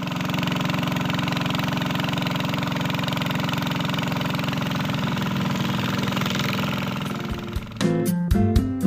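An engine running steadily at an even idle, then acoustic guitar music starts near the end.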